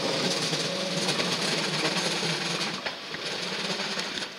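DB class 425 electric multiple unit moving away through the station tracks: a steady rolling rumble with a low motor hum and a few sharp clicks of wheels over rail joints in the second half, dropping off near the end.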